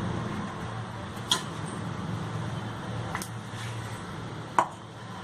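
A steady low hum, with a metal spoon clicking sharply against a mixing bowl three times while ginger-garlic paste is spooned in.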